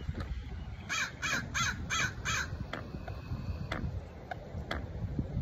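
A crow cawing five times in quick succession, about three caws a second, over a low rumble of wind on the microphone.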